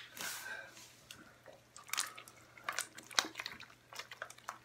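Slime being pressed and worked by hand against a tile floor: irregular wet squishes with small sticky pops and crackles as it is pulled off the surface.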